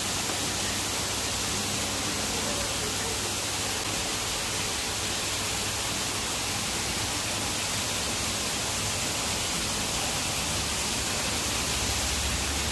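Steady, even background hiss with a low hum underneath, unchanging throughout.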